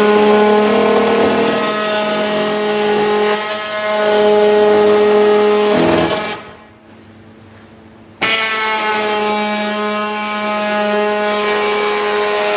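Electric power tool cutting into a plastic car bumper, its motor whining at a steady pitch under load. It stops about halfway through and starts again abruptly two seconds later.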